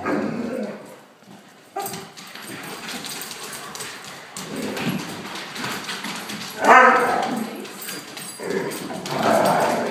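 Akitas making play noises, a mix of whines, yips and barks, while they wrestle with a German shorthaired pointer. It sounds vicious but is play, not aggression. The loudest is a drawn-out cry about seven seconds in.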